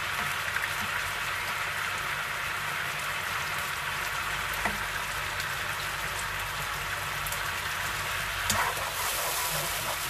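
Beef juices reducing in a pan into a concentrated sauce, sizzling and bubbling steadily, with a few small pops.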